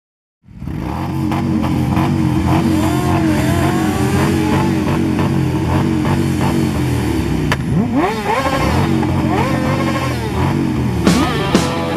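Motorcycle engine running, then revving with its pitch rising in a few quick climbs in the later seconds. Sharp hits come in near the end as a rock track starts.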